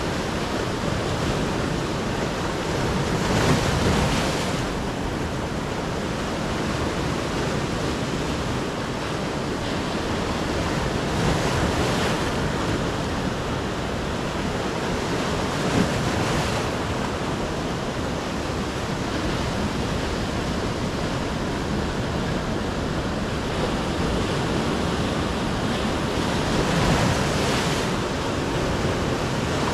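Sea surf: waves breaking and washing ashore in a steady rush of noise, swelling louder each time a bigger breaker comes in, a few times over the stretch.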